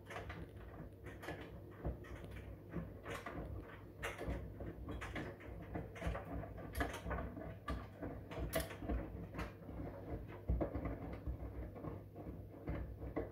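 Front-loading washing machine in its wash phase, the drum turning wet laundry over a steady motor hum, with irregular swishes, sloshes and soft thumps as the load falls.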